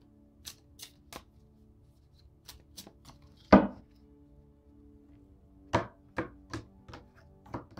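A deck of oracle cards being handled and knocked against a marble tabletop: a string of short taps and knocks, with one loud knock about three and a half seconds in and a quick cluster of taps near the end, over faint soft background music.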